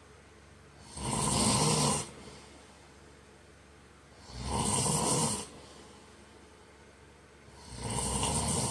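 A man snoring in his sleep: three loud, rough snores, each about a second long and about three seconds apart, much quieter between them.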